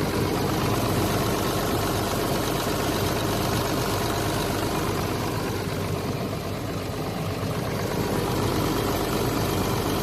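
Isuzu diesel engine of a rotary drilling rig running steadily, easing off slightly about six seconds in.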